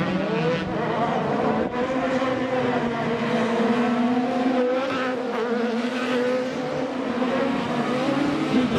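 Several autocross race cars' engines running hard at high revs together on a dirt track, a steady, slightly wavering engine note.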